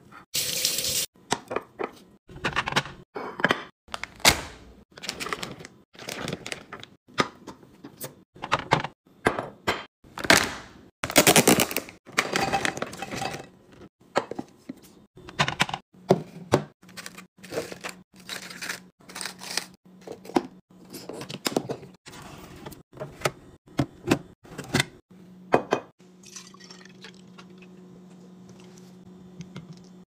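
Glass and plastic food containers and packaging being handled on a counter: a fast, irregular string of taps, clicks, knocks and rustles. A steady low hum comes in about halfway and is almost the only sound for the last few seconds.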